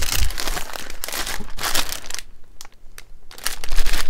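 Clear plastic retail packs crinkling and rustling as they are handled and shuffled, with many small crackles. It dies down for about a second past the middle, then starts again.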